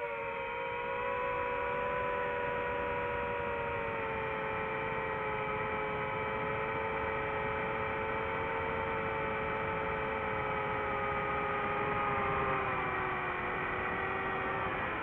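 Electric motors of an FPV racing drone whining steadily in flight, several close tones drifting together and sliding slowly lower in pitch.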